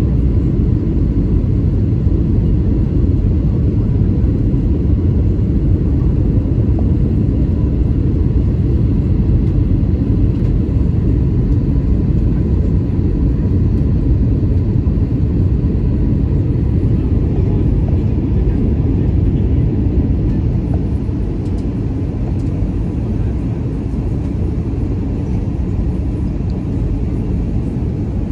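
Airbus A320-214's CFM56 turbofan engine heard from inside the cabin beside the wing on approach: a steady low rumble with a faint high tone, becoming slightly quieter about twenty seconds in.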